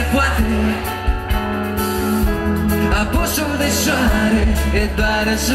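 Live pop band playing through a loud PA, with a strong bass line and guitar under a male voice singing.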